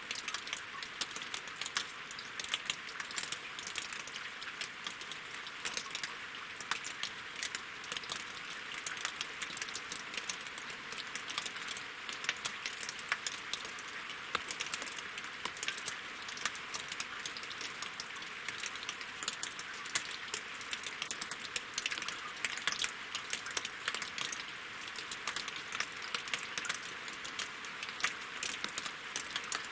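Steady rain falling on a lake and on wooden logs: a constant hiss of water with dense, irregular small ticks of drops striking.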